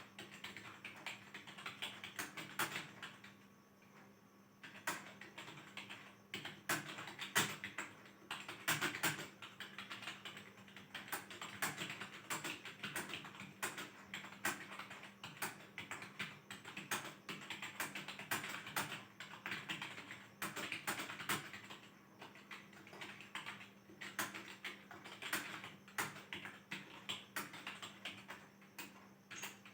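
Typing on a computer keyboard: quick, irregular runs of keystrokes during a timed typing test, with a short pause about four seconds in.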